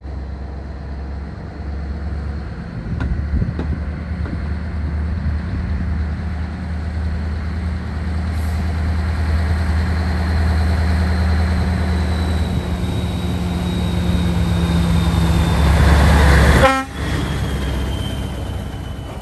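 Scania V8 diesel truck engine pulling a loaded semi-trailer, its deep drone growing louder as it approaches, with a thin high turbo whistle that slowly falls in pitch. Near the end the engine note cuts off abruptly as the throttle is lifted, then carries on quieter as the truck passes.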